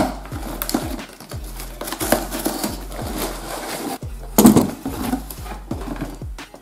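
Cardboard shipping box and plastic-windowed doll boxes being handled and slid out, rustling and scraping, with a louder scrape about four and a half seconds in. Background music with a steady beat plays underneath.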